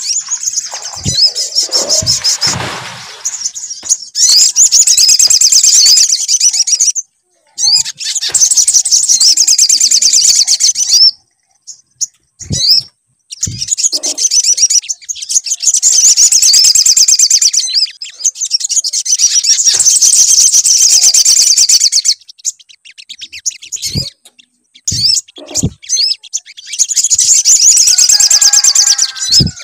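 Sogon (sogok ontong) birdsong played as a lure to prompt another bird to sing: long bouts of rapid, high-pitched chattering trills broken by short pauses, with a few low thumps.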